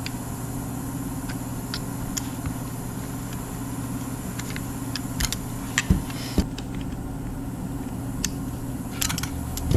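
Ultrasonic cleaner running with a steady buzzing hum, while a piston soaks in it. A few short, light clicks and knocks are scattered through, loudest a little past the middle and near the end.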